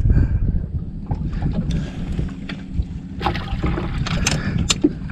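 Wind rumbling on the microphone aboard a small fishing boat, with scattered clicks and knocks of handling that grow busier in the last couple of seconds, and a faint steady hum starting about halfway in.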